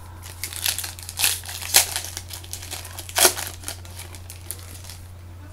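Plastic wrapping on a box of trading-card packs crinkling and tearing as it is opened, in irregular crackly bursts, with the loudest crackles near the middle and then it dies down.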